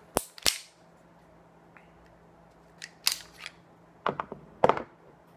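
Metal clicks of a Girsan Regard 9 mm pistol, a Beretta 92 clone, as its slide is taken off the frame. There are two sharp clicks right at the start, then lighter clicks around three seconds in and a cluster of knocks about four seconds in, the loudest about four and a half seconds in.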